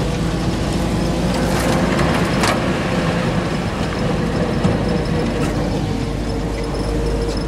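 1965 Land Rover Series IIa driving over a snowy track, heard from inside the cab: a steady engine and drivetrain drone with a held whine, body rattles and a few sharp knocks.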